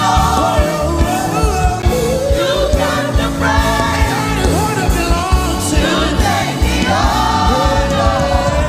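Gospel music: singers over a band with bass and a steady drum beat.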